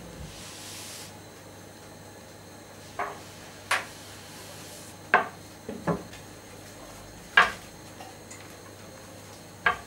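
A long wooden rolling pin (oklava) knocking against a metal baking tray and the counter, several sharp separate knocks at uneven intervals, as rolled filo dough is slid off it into the tray.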